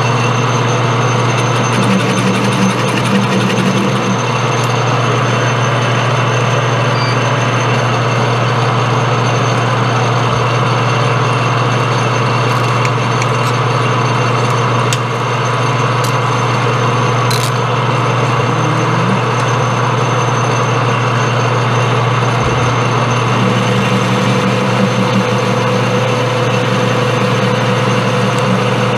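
Metal lathe running steadily while facing and turning a bar of 1018 steel, a constant machine hum with the sound of the cut over it.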